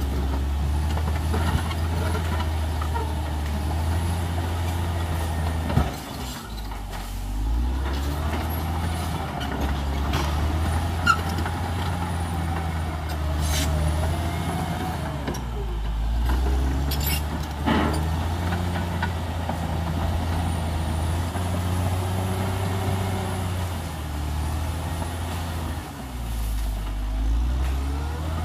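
Caterpillar D6R XL bulldozer's diesel engine running under load, its revs sagging and picking up again several times as the machine works. A few sharp knocks stand out over it.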